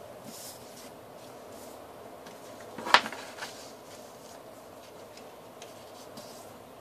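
A sheet of paper being handled and folded: faint brushing rustles, with a sharp snap about three seconds in and a smaller one just after.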